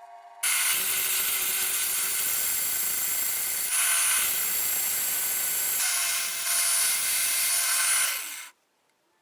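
A power tool running steadily in a metal workshop, starting abruptly about half a second in and cutting off near the end, with a harsh hissing noise that shifts slightly twice along the way.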